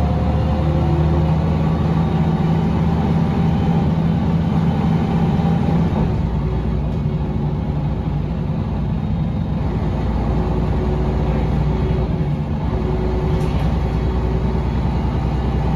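Inside a moving Mercedes-Benz O405NH bus: its rear engine runs steadily, with the whine of the ZF automatic gearbox and the hub-reduction rear axle rising over it. The engine note drops about six seconds in, and a different steady whine comes in a few seconds later.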